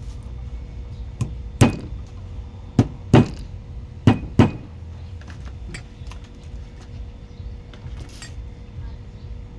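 Six sharp knocks in three close pairs, about a second apart, over a steady low hum with a faint steady tone.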